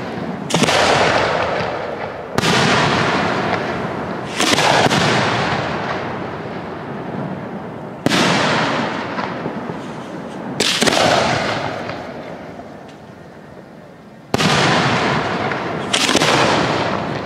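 Display-grade (1.3G) aerial firework shells bursting in a steady sequence. About seven sharp booms come a second or few apart, and each is followed by a long rolling echo that fades away.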